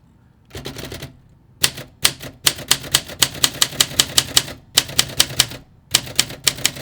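Olympia SM5 manual typewriter being typed on: after a short rasp about half a second in, a fast run of sharp key strikes at about five a second, with two brief pauses.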